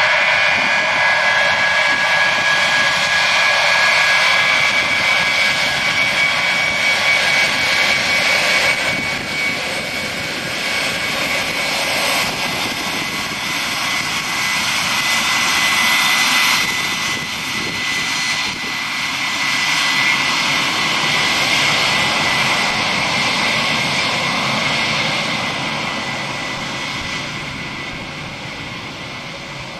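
Four turbofan engines of a Boeing 707 without hushkits on its take-off roll: a loud jet roar with a high steady whine in the first half. The sound draws away and fades over the last few seconds as the aircraft rolls off down the runway.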